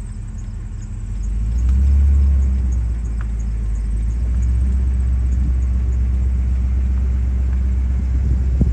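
Low, steady rumble of a running vehicle engine, swelling briefly about two seconds in.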